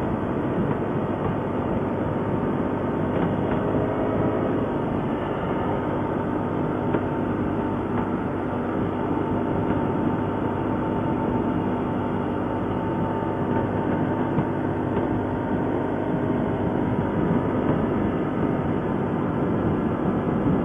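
ATV engine running steadily on a ride, with the machine's mechanical noise over the trail.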